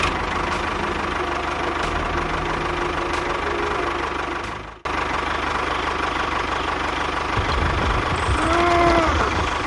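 A small motor running steadily with a humming tone. It breaks off sharply about five seconds in, then runs on; near the end a few short tones rise and fall.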